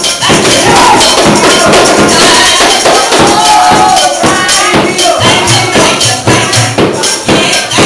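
Loud, upbeat gospel praise-break music driven by a fast, steady tambourine rhythm, with a few short sung or held notes over it.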